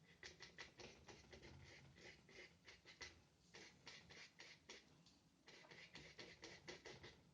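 Paintbrush dabbing on paper in quick, short strokes, about five a second, in three runs with brief pauses between them.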